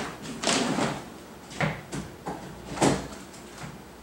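Handling noise: a string of short knocks and rustles, the loudest about three seconds in, as objects are picked up and set down.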